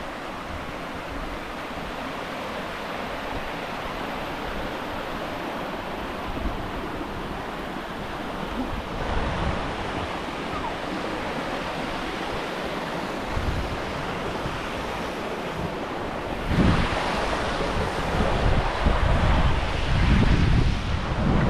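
Steady rushing wind on a mountainside. From about three-quarters of the way in, stronger gusts buffet the microphone with an uneven low rumble.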